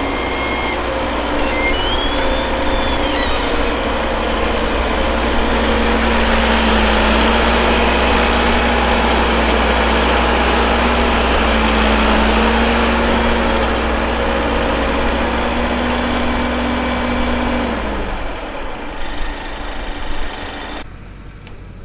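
Heavy diesel engine of earthmoving machinery running steadily under load, with a brief high tone that rises and falls about two seconds in. The engine sound drops away about eighteen seconds in.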